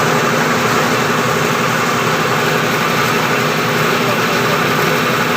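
Air compressor running steadily with a constant mechanical hum and hiss.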